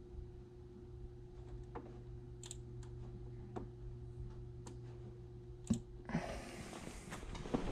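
Scattered single clicks of a computer mouse, about six of them, over a steady low electrical hum. About six seconds in, a rustling noise of clothing and body movement takes over, with a thump near the end.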